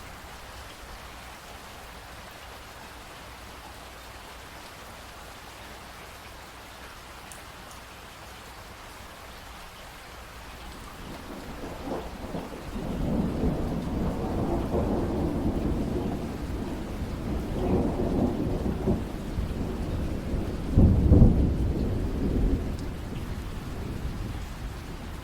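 Steady rain falling, with a long roll of thunder that builds about ten seconds in. The rumble swells in waves, is loudest about three quarters of the way through, and dies away near the end.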